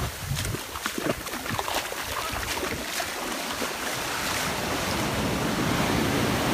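Surf washing up a sandy beach, foam rushing over the sand, with wind rumbling on the microphone. Short crackles come in the first half, then a steadier, slightly louder rush of water builds.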